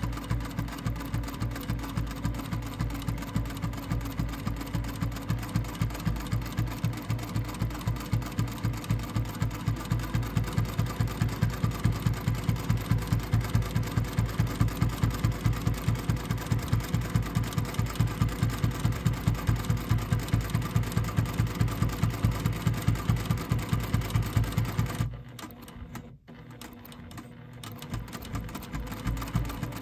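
Juki TL18 QVP straight-stitch sewing machine stitching binding onto a quilt edge through a double-fold bias binder, with a fast, even needle rhythm. It grows a little louder about a third of the way in and stops suddenly about five seconds before the end.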